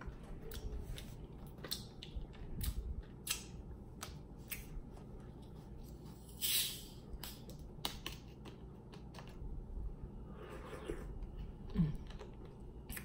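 Plastic bottle of Clear American sparkling orange cream water handled and its screw cap twisted open, with scattered plastic clicks and crackles and a short hiss of escaping gas about six and a half seconds in. A brief low sound near the end.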